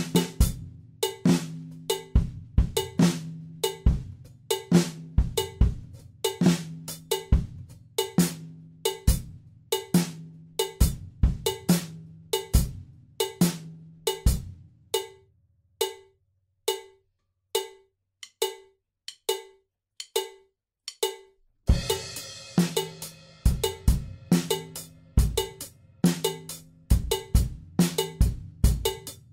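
Drum kit played in 16th-note time against a cowbell-like metronome click at 69 bpm. About halfway through the drums stop and the click ticks on alone for several seconds. The kit comes back in with a cymbal crash.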